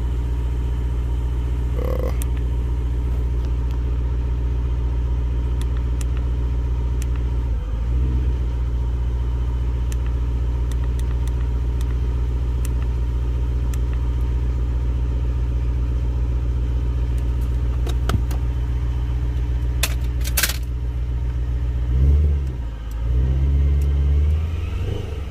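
Supercharged BMW E92 M3's V8 engine idling steadily, then revved briefly a couple of times near the end.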